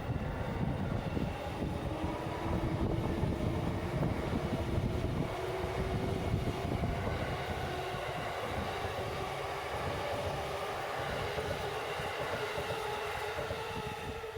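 Electric commuter train running past on the rails, wheels rumbling with a clatter, under a motor whine that rises slowly in pitch as the train gathers speed.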